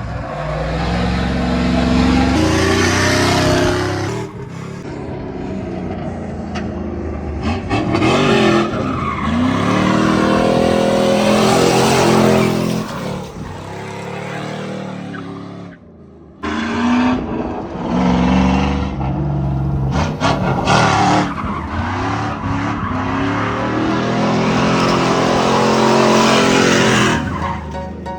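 Chevy Silverado pickup being drifted: its engine revs up and down while the tires squeal and skid. There is a short break a little over halfway, then the revving and tire squeal resume.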